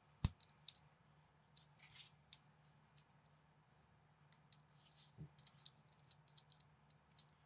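Small plastic clicks and taps of minifigure parts being handled and pressed together, as translucent green effect pieces are fitted onto a LEGO-compatible minifigure's hands. One sharp click comes about a quarter second in, and a quick run of light clicks near the end.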